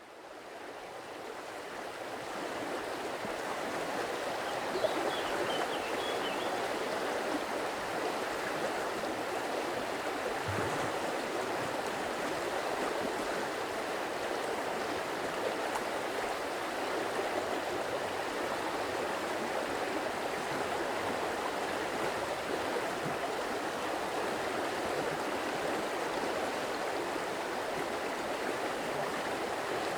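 Stream water flowing and splashing steadily, fading in over the first few seconds.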